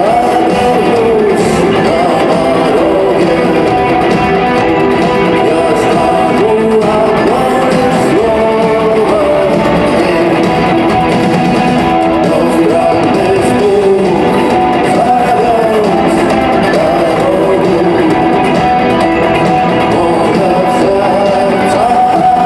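Live rock band playing in an arena, heard through a phone's microphone: electric guitars strumming under a sung melody, loud and continuous.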